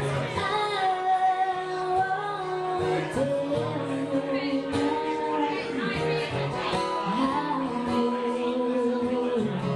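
A woman singing a slow song, holding long notes, while playing an acoustic guitar.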